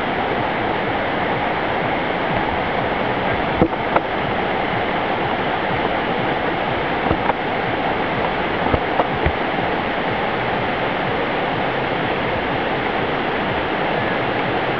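River water rushing over shallow rapids, a steady even noise. A few faint knocks come in the first half.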